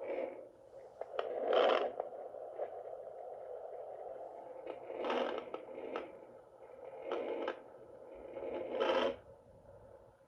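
Handheld fetal doppler's speaker giving a steady static hiss, with loud scratchy crackles each time the probe slides over the gel on the belly. No heartbeat rhythm comes through: the probe has not yet found the baby's heartbeat.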